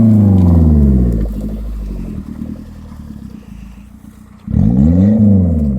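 Off-road 4x4's engine revving: a rev falls away over about the first second, the engine runs lower for a few seconds, then a second short rev rises and falls near the end.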